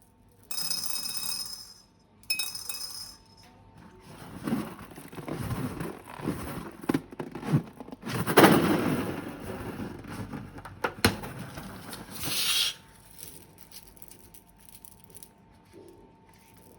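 Slime and balloon handling sounds: irregular squishing and crackling with sharp clicks, loudest about eight seconds in, then fading away.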